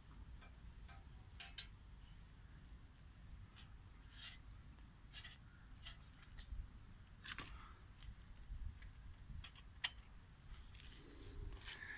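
Faint handling noise: scattered light clicks and rubbing as a hand touches parts of the motorcycle and handles the phone, with the engine not running. One sharper click near the end.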